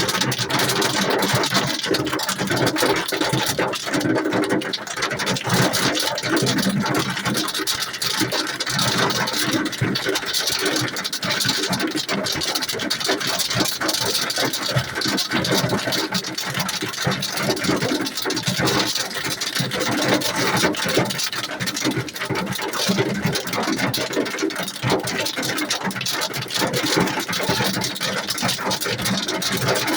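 Hailstones pelting down in a heavy hailstorm: a dense, steady rattle of countless small impacts that keeps up without a break.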